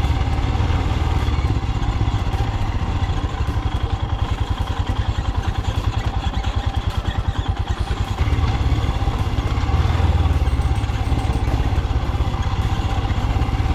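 A single-cylinder adventure motorcycle engine running at low, even revs during an off-road trail ride, with a steady pulsing beat. It gets louder about eight seconds in.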